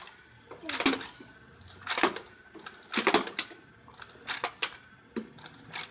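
Battery-powered Enforcer toy blaster firing, a series of about six sharp clicks and clacks at irregular intervals about a second apart, as shots are fired and pellets strike the target.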